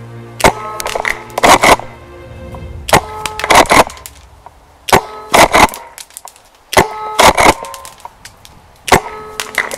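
Tokyo Marui KSG gas airsoft pump-action shotgun fired five times, about every two seconds. Each shot is a sharp crack with clacks close after it, over background music.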